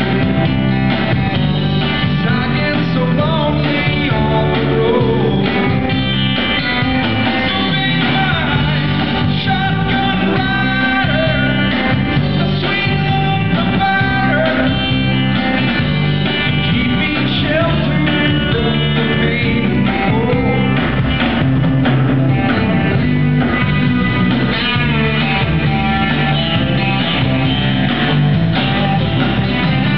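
Live amplified band music: a man singing over a strummed acoustic guitar and an electric bass guitar, playing without a break.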